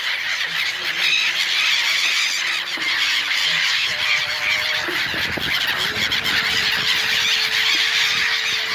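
A large flock of gulls calling and squealing at once, many overlapping shrill cries in a constant chatter, with a steady low hum underneath from about a second in.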